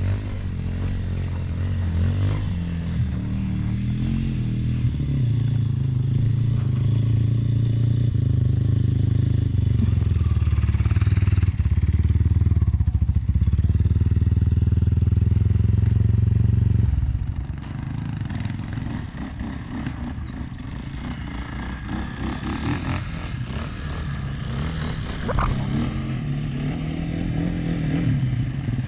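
Enduro dirt bike engine under way on a trail. The revs climb over the first few seconds, then it runs steady and loud under load for a long stretch. About two-thirds of the way through it drops to lower, uneven running, and it picks up again near the end.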